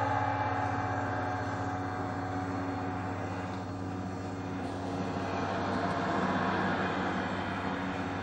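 A dense, steady rumble with a low hum running under it, swelling slightly near the start and again about six seconds in, from a live sampler sound collage.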